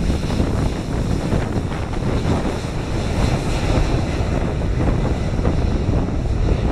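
Embraer 190 jet's twin GE CF34 turbofan engines at takeoff thrust, a steady rushing noise as the airliner accelerates along the runway, with wind on the microphone.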